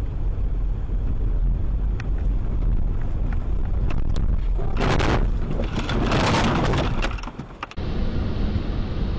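Car driving on a snowy road, heard from inside through a dash camera: a steady low engine and road rumble with a few sharp clicks. From about five seconds in comes a loud, noisy crunching stretch lasting about two and a half seconds, as the car closes on a stopped car ahead, typical of a collision or a slide. It breaks off suddenly near the end.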